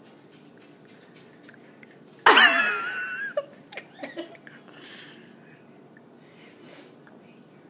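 Baby's high-pitched, wavering squeal of about a second, a little over two seconds in, followed by a few short breathy sounds.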